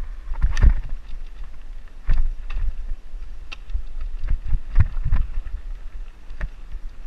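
Mountain bike descending dirt singletrack, heard from a bike- or rider-mounted camera: a low steady rumble of tyres and wind, with irregular knocks and rattles as the bike jolts over roots and bumps, the hardest hits about half a second in and around five seconds.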